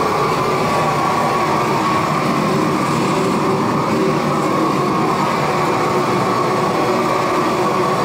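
A loud machine drone that runs on without change and without any rhythm.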